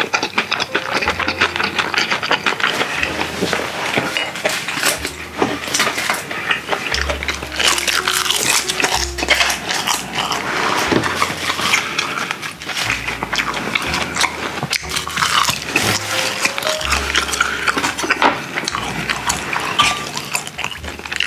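Close-miked chewing and mouth sounds of a person eating rice and grilled mackerel: a continuous run of wet smacks and small clicks.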